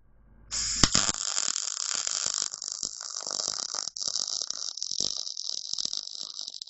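MIG (wire-feed) welder arc crackling and hissing as a steel bracket is welded onto steel plate. The arc strikes about half a second in with a sharp pop, stops briefly just before four seconds in, then strikes again and runs on.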